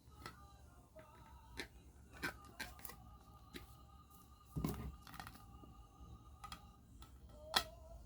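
Scattered light clicks and taps of a plastic figure and its packaging being handled, with a duller knock about halfway through and a sharp click near the end, over faint background music.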